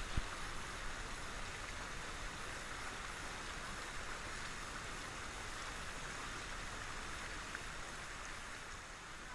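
Shallow river rushing over rocks and small rapids: a steady, even water rush, with one brief low thump about a quarter second in.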